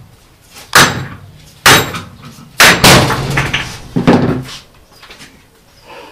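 Hammer blows on a Titebond-glued spotted gum test joint held in a bench vice: about five sharp, ringing strikes roughly a second apart, the hardest early on, until the piece breaks off about four seconds in.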